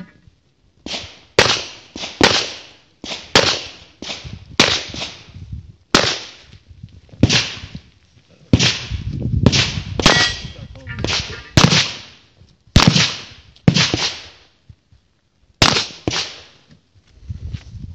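Makarov pistol fired in strings: about twenty sharp shots, some in quick pairs and some a second or two apart, each trailing off in a short echo.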